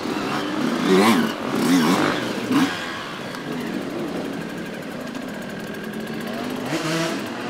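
Yamaha enduro motorcycle engine revving hard in three quick bursts, then running lower and steadier, with another rev rising near the end.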